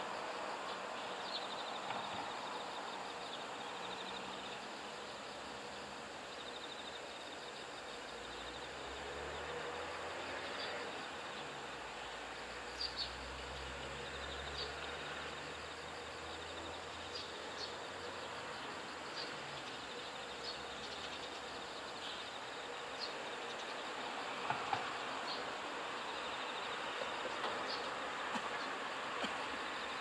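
Insects trilling steadily in the background, with a low rumble rising and fading from about eight to sixteen seconds in and a few short, high chirps scattered through.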